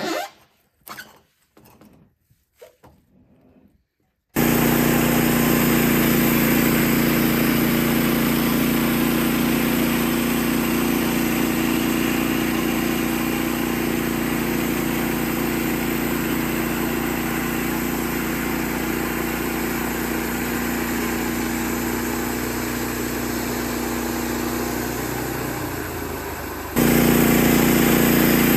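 Engine of a portable bandsaw sawmill running at a steady speed. It comes in abruptly about four seconds in, after a few faint knocks. Near the end it sags briefly, then comes back louder.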